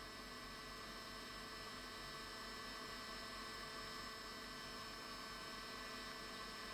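Faint, steady electrical hum with a light hiss, holding a few constant tones, and no distinct handling sounds.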